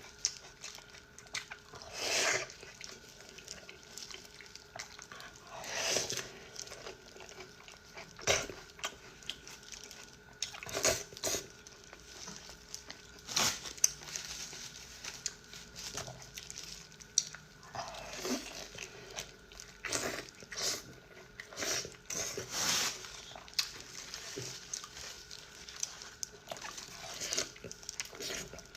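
Close-miked eating: a person chewing and biting into fatty pork and noodles, with irregular wet mouth sounds and short clicks every second or two.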